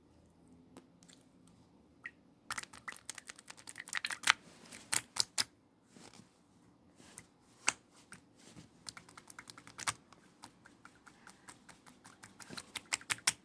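Slime being played with by hand, giving rapid small clicks and pops. They are sparse at first, come thick from about two and a half seconds in, thin out midway, and build up again near the end.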